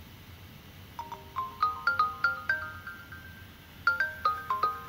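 Mobile phone ringing with a marimba-style ringtone: a short rising phrase of bright, quickly fading mallet notes starting about a second in, which begins again a little before the end.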